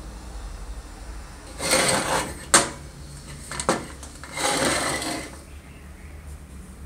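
Handling noise from a brass kerosene pressure stove being moved by hand: two short scraping rustles with a sharp click and a couple of lighter clicks between them, over a low steady hum.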